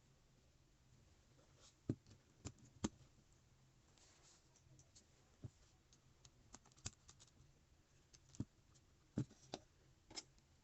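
Lego Technic pieces being handled and pressed together: about a dozen light clicks and taps at irregular intervals, the sharpest about two, three and nine seconds in.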